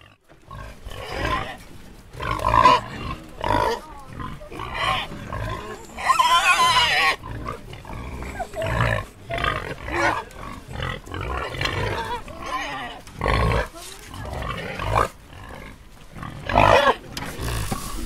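Pig grunting in a rapid string of short calls, with a longer, louder call about six seconds in and another near the end.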